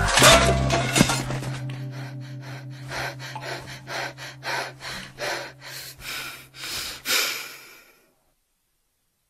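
Cartoon soundtrack: a run of short breathy puffs, about two a second and slowly fading, over a held low music note. It cuts off to silence about eight seconds in.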